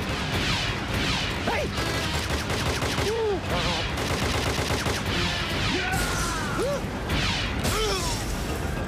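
Sci-fi laser-gun fire from a cartoon battle: repeated rapid volleys of zapping blasts, with short swooping tones rising and falling in pitch between them.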